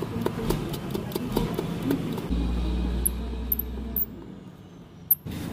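Light metallic clicks and knocks as hands work a metal linkage rod and its threaded coupler on an outboard motor's midsection, with a steady low rumble for a second or two partway through and a single sharp knock near the end.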